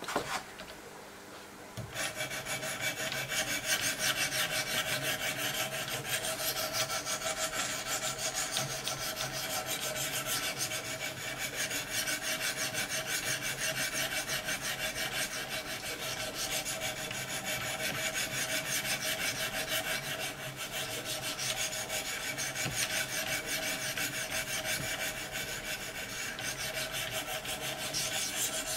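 A Wicked Edge diamond stone stroked rapidly back and forth along the M390 steel edge of a Benchmade Nakamura knife blade, a steady gritty scraping. It starts about two seconds in, after a brief knock.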